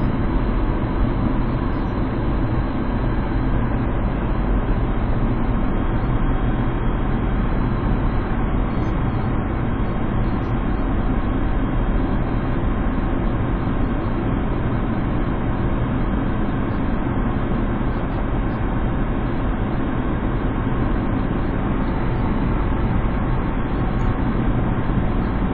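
Steady road noise inside a moving car: engine and tyres running at an even speed, with a low hum underneath.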